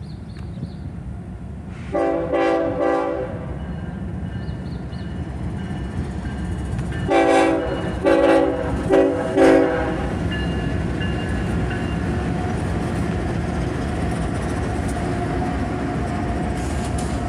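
Multi-tone air horn of a BNSF freight train's lead diesel locomotive: one blast of about a second, then, about seven seconds in, long-long-short-long, the standard grade-crossing signal, over the rumble of the diesel engines. From about ten seconds the locomotives and double-stacked intermodal cars roll past with steady wheel noise on the rails.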